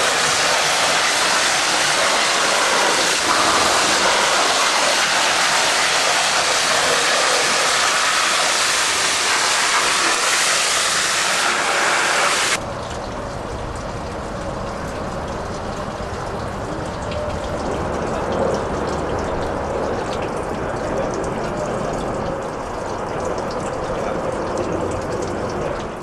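High-pressure water jet from a robotic wash monitor blasting mud off a bulldozer's tracks, a loud steady hiss. About halfway through it cuts off abruptly, leaving a quieter, lower rumble.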